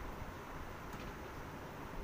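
Steady background hiss with a low rumble, and one faint click about a second in.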